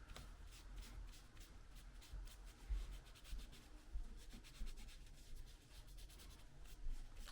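Faint, irregular rubbing strokes of a wipe cleaning old, dried-out thermal paste off a laptop's CPU and GPU dies, with a few soft knocks.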